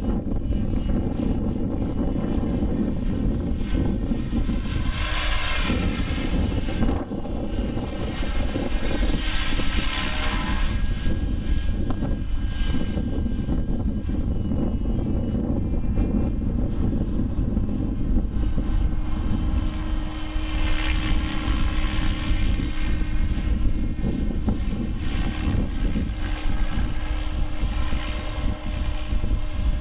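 Align T-Rex 600 radio-controlled helicopter flying, its rotor and motor sound running steadily and swelling louder and higher several times as it moves about. Heavy wind noise on the microphone.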